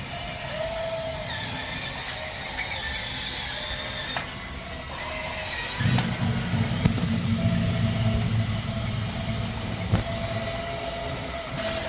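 Electric gear motors of an RC excavator whirring steadily. A deeper motor hum joins about six seconds in, and a couple of sharp clicks come through.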